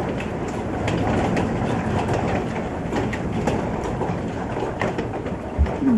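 Hailstorm in strong wind: a steady rushing noise, dense with the sharp ticks of hailstones striking around the microphone. A short falling call sounds near the end.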